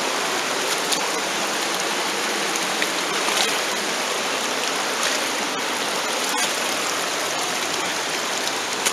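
Shallow creek water rushing steadily around someone wading across it, with a few faint splashes.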